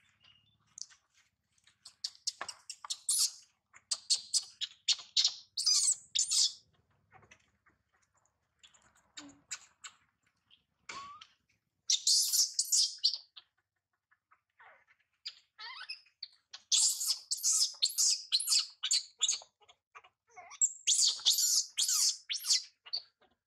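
Infant macaque crying in shrill, high-pitched distress squeals, coming in runs of short calls with quiet pauses between.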